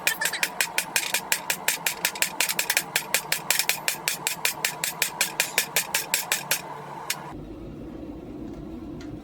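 Hand hammer striking hot rail-spike steel on an anvil in a fast, even rhythm of about five blows a second, drawing the blade out; the hammering stops about seven seconds in, leaving a steady hum.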